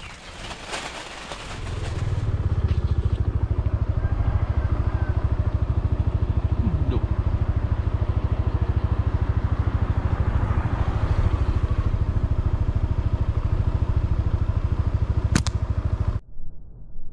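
Small motorbike engine running steadily as the bike is ridden along, coming up about two seconds in and cutting off suddenly near the end.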